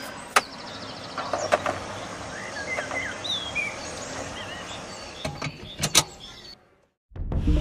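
Sharp clicks and knocks of hands working a car's ignition key and gear lever, the loudest a quick pair of clicks near the end, over steady background noise with birds chirping. The sound cuts out briefly before music begins.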